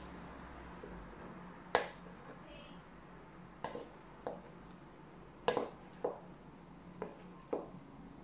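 Spatula knocking and scraping against a metal mixing bowl while thick cake batter is scraped out of it: about seven short knocks at irregular intervals, the loudest about two seconds in and halfway through.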